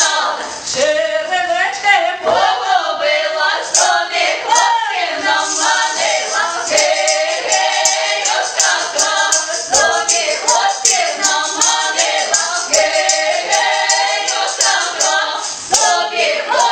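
A Ukrainian folk ensemble singing a folk song a cappella, several voices together in harmony.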